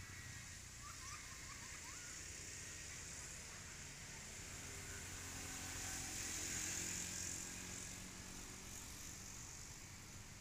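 Outdoor forest ambience: a steady high hiss that swells around the middle, over a low rumble, with a few short rising chirps about a second in.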